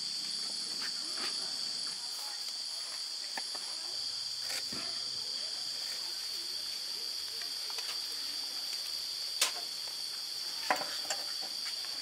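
Steady high-pitched drone of insects, with a few sharp clicks in the last few seconds, the loudest about three-quarters of the way through.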